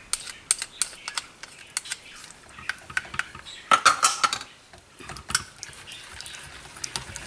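A spatula stirring thick chocolate pudding and cream in a stainless steel pot: irregular clicks, taps and scrapes against the pot, with a louder stretch of scraping about four seconds in.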